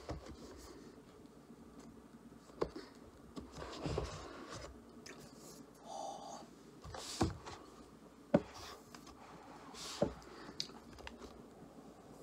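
Handling noises of unboxing an iPad: the cardboard box and its paper packaging rustling and scraping, with a few sharp taps and knocks as the lid and contents are lifted out.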